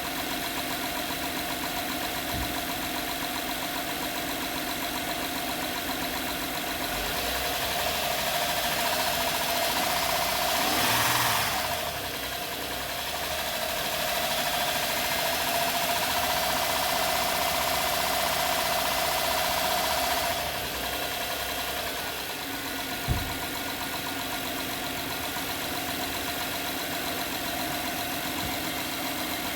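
2011 Honda Pilot's 3.5-litre V6 idling, then revved twice: a short rise about seven seconds in, then a longer held rev of about seven seconds before dropping back to idle. The engine is revved to try to bring out a loud knocking noise the owner reported. A single short click follows a couple of seconds after the revving ends.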